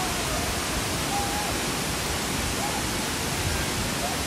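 Steady rush of water from a large waterfall cascade.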